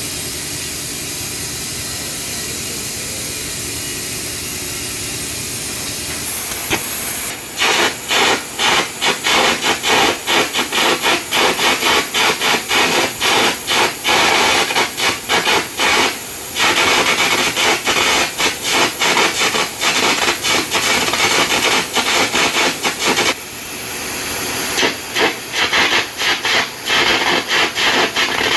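Air carbon arc gouging: the gouging torch's compressed-air jet hisses steadily, then about seven seconds in the arc strikes and runs with a loud, rapid crackling that keeps stuttering. It breaks off briefly near the end and starts again.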